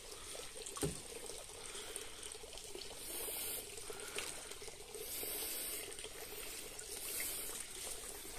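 Water trickling and dripping as a skimmer net full of duckweed is lifted streaming from a fish tank, with a few louder splashy stretches about three, five and seven seconds in and a single light knock near the start.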